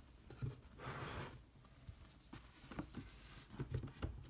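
Hands handling a Blu-ray disc case and its box: a soft sliding rustle about a second in, then light taps and scrapes.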